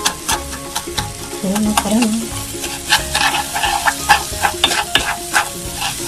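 Wooden spoon stirring and scraping roasted vermicelli and melting butter around a pan: a dry rustle broken by irregular scrapes and clicks, with a light sizzle as the butter melts.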